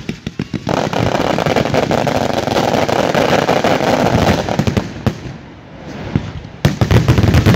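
Fireworks going off. A quick run of sharp firecracker bangs leads into about four seconds of dense, continuous crackling, which dies down; near the end a new burst of loud, rapid bangs starts.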